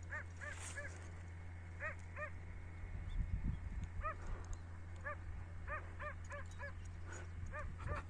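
A dog barking over and over, faint short yaps in quick runs of two or three. A brief low rumble about three seconds in.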